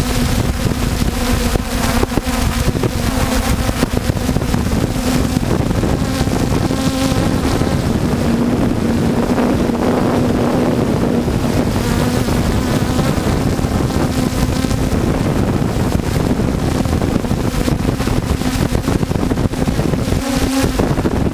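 Multirotor drone's electric motors and propellers buzzing steadily, the pitch wavering only slightly, as picked up by the onboard GoPro, with wind rushing over the microphone.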